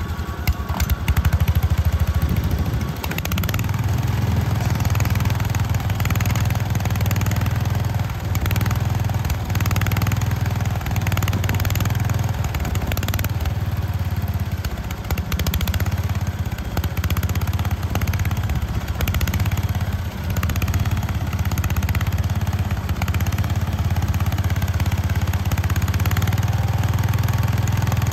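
1970 Gilson garden tractor's engine running steadily under load while its rear-mounted rototiller churns the soil, with a few brief dips in level.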